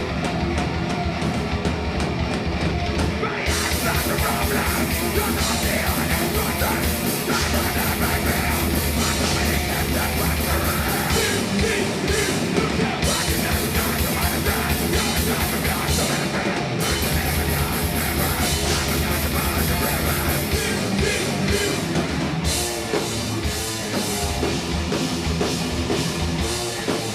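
Thrash metal band playing live at full volume: distorted electric guitars, bass and drum kit. The band's sound fills out with cymbals about three and a half seconds in.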